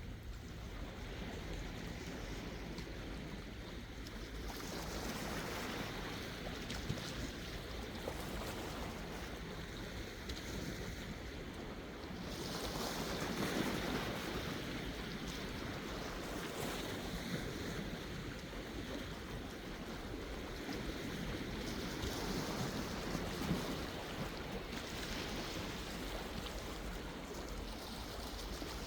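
Sea waves washing in and drawing back, the wash swelling and fading in slow surges, loudest about halfway through.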